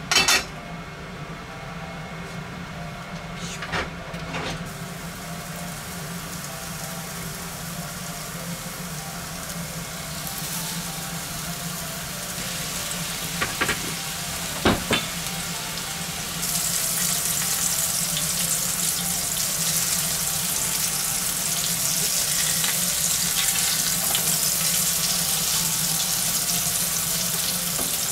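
Hamburger patties sizzling in hot oil in a frying pan. The sizzle builds about a third of the way in and gets louder a little past the middle. Sharp knocks come just after the start and a few more around the middle, with a steady low hum underneath.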